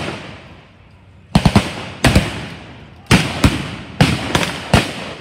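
Blank gunfire from re-enactors' guns in a mock skirmish: about eight single shots at uneven intervals after a quiet first second, two of them close together, each cracking out and dying away in a long echo.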